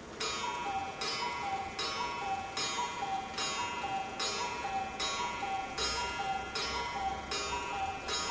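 One-day Black Forest cuckoo clock striking its cuckoo call, the bellows-driven pipes sounding a two-note high-then-low "cu-ckoo" over and over, about one call every 0.8 s. Each call carries a breathy puff of air, and the calls run on past ten, one per hour struck.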